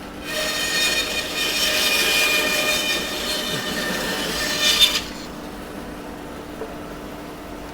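Bandsaw cutting down a split in a dried log offcut, a high whining rasp for about four and a half seconds that stops suddenly. The saw then runs on without load, a quieter steady hum.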